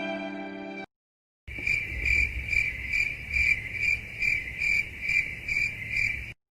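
Stock crickets-chirping sound effect, the familiar 'awkward silence' gag: a steady chirp about twice a second over a faint low hum. It starts about a second and a half in and cuts off abruptly near the end, after the tail of a sad violin sting.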